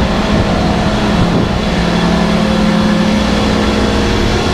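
Air-cooled chiller running: a steady low hum under even fan noise.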